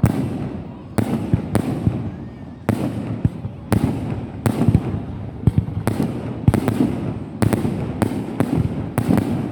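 Fireworks bursting in quick succession: more than a dozen sharp bangs, one or two a second, each trailing off in a noisy echo.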